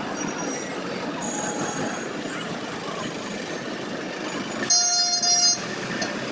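Congested road traffic passing close: motorcycle and truck engines running slowly. A vehicle horn honks once, loud, for about a second, about three-quarters of the way in.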